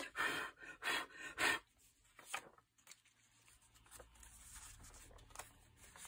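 Paper rustling in three short bursts from pages and specimen papers being handled, then quiet with a few light ticks as things are set down.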